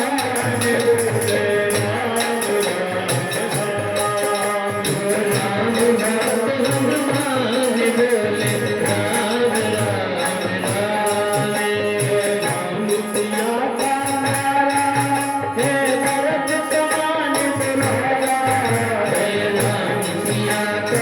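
Hari kirtan devotional music: singing over pitched melody, kept in time by a steady, fast rattling percussion.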